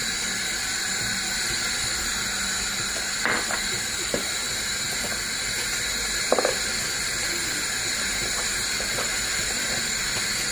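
A steady hiss, with a few soft scrapes and knocks, about three, four and six seconds in, from a wooden spoon stirring small square pasta pieces in a wooden bowl.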